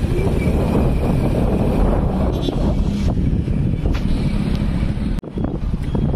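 Steady engine and road noise from a vehicle being driven, heaviest in the low end. It cuts out for a split second about five seconds in.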